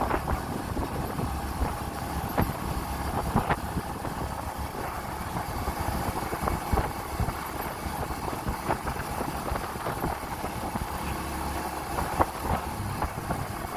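Motorcycle running steadily along a road, engine and road noise together, with a few sharp knocks.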